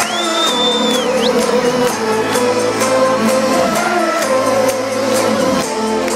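Electronic dance music played loud through a festival sound system, heard from within the crowd, with a steady beat of crisp ticks. Near the start a high whistling tone slides up and holds for about a second before dipping and rising again.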